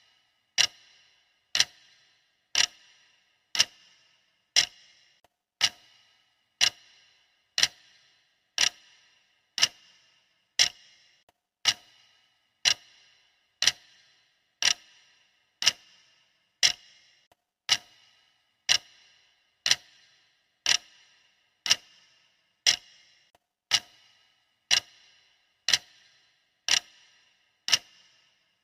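Clock-style ticking from a countdown timer's sound effect: one sharp, dry tick about once a second, perfectly steady and even.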